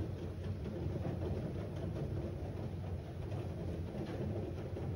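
Blocks of a handmade sliding-block puzzle being pushed around by hand inside a cardboard tray, with a few soft scrapes and light taps. Under them runs a steady low rumble, which is the louder sound.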